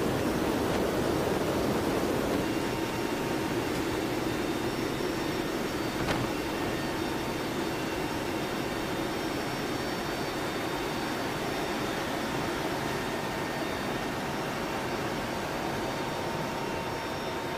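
Steady rush of wind and turboprop engine noise inside a C-130J Super Hercules's cargo hold with the rear ramp open in flight, with faint steady engine tones over it. A brief click about six seconds in.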